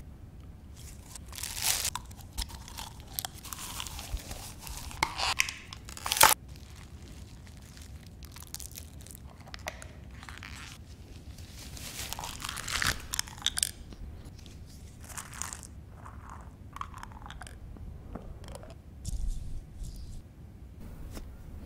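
Plastic being bitten and chewed: irregular bursts of crunching and crackling, with one sharp crack about six seconds in.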